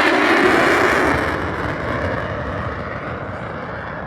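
Jet noise of a Boeing F/A-18 Super Hornet's twin turbofan engines as it flies past, loud at first and fading steadily as it moves away.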